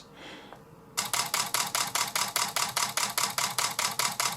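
Canon 5D Mark III's shutter and mirror firing in a continuous burst, a fast even run of sharp clicks starting about a second in. The burst loads the camera while its current draw is checked, and it holds up.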